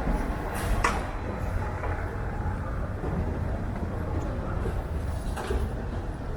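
Steady low rumble of airport background noise, with a short click about a second in and another near the end.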